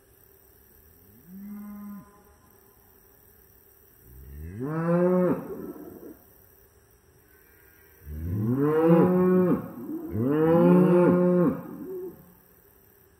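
Cattle mooing: one short, softer moo, then three long, loud moos, the last two almost back to back.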